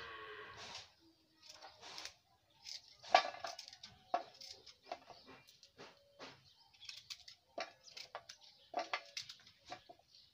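Kitchen knife cutting firm badhar (monkey jack) fruit into small pieces over a steel plate: irregular crisp cuts and light taps, about two a second.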